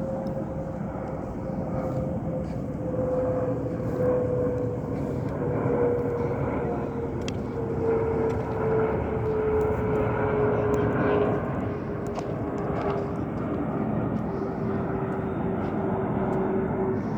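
Bombardier CRJ-100 regional jet's two rear-mounted GE CF34 turbofans, heard from the ground as it flies over on landing approach. A steady jet rumble carries a whine that slowly falls in pitch, growing louder toward the middle.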